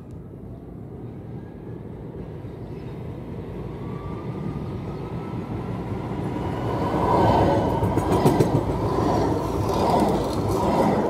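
Tram running on its rails, growing steadily louder and loudest in the second half, with a faint electric motor whine rising in pitch as it picks up speed.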